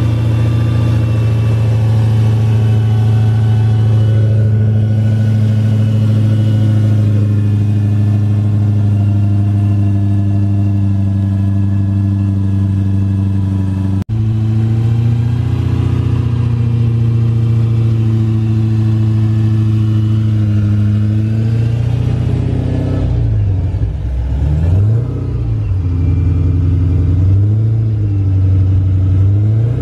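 Dodge Challenger SRT Hellcat's supercharged 6.2-litre HEMI V8 running at a steady idle. About two-thirds of the way through, it is blipped up and down several times in short revs.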